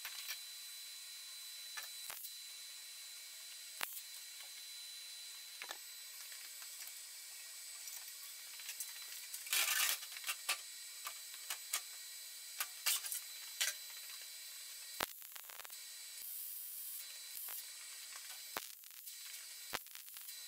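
Quiet workshop sounds over a faint steady hiss: scattered clicks and knocks of metal parts being handled and offered up, with a short louder burst of noise about ten seconds in. Near the end come brief sharp crackles as MIG welding tacks begin.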